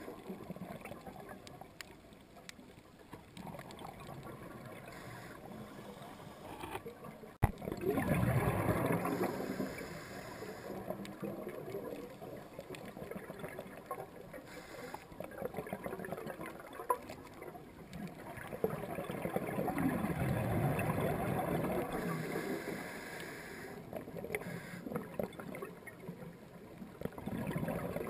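Underwater scuba breathing: bubbling swells of exhaled air from a diver's regulator, each lasting a few seconds and coming every several seconds, with one sharp click a little after seven seconds in.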